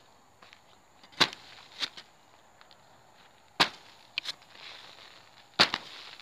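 A homemade pipe hole-cutter with a saw-toothed rim punching through taut plastic mulch film, three sharp pops about two seconds apart, each followed by a softer click.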